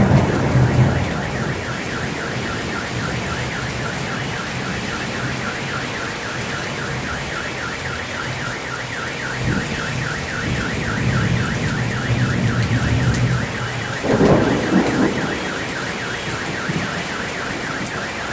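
Heavy rain in a thunderstorm, with a car alarm wailing in a fast, repeating warble throughout. Low thunder rumbles at the start, and a louder burst of thunder comes about fourteen seconds in.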